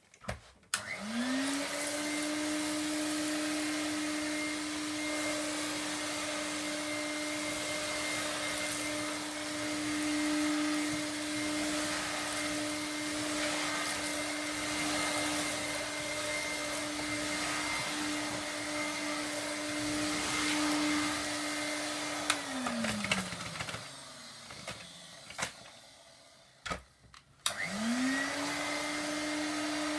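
1960s Hoover Hooverette vacuum cleaner switched on, its motor whining up to speed and running steadily for about twenty seconds as it picks up spilled pudding rice, then switched off and winding down with a falling pitch. After a few clicks it is started again near the end and runs up to speed once more.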